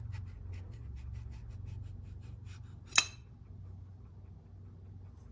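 Stuck pressure-control piston of an Audi 2.0 TFSI two-stage oil pump being worked out of its bore with channel-lock pliers: a run of small scratchy clicks as it grinds against the bore, then one sharp metallic clack about three seconds in. The scratchiness comes from the piston binding tight in a gritty bore.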